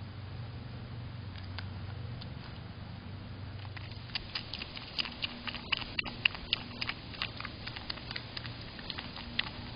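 A groundhog chewing a piece of vegetable close to the microphone, heard as a run of irregular wet clicks and crunches that start about four seconds in. A low steady hum lies underneath.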